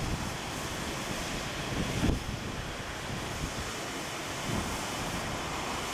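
Wind blowing across a camcorder's built-in microphone: a steady rushing noise with low rumbling gusts about two seconds in and again about four and a half seconds in.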